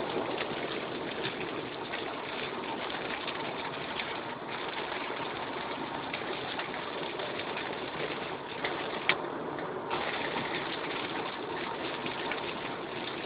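Heavy rain hitting a moving car's roof and windscreen, heard from inside the cabin, over the steady hiss of tyres on a soaked road; one sharp click about nine seconds in.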